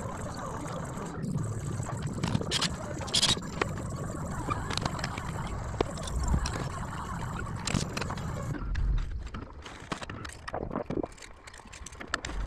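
Building-site work noise: scattered knocks, clicks and scrapes over a steady low rumble, with a few louder thuds.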